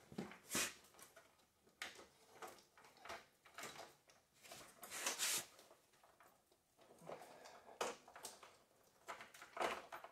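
Hands working at a garden tractor's battery and its rubber hold-down strap: scattered light knocks, clicks and rustles, with a brief busier cluster about halfway through.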